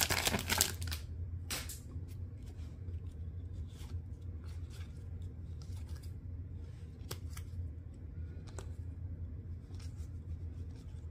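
Foil trading-card pack torn open, a loud crinkling crackle in the first second and a shorter one about a second later. Then cards are slid and flicked one by one, with faint ticks and rustles.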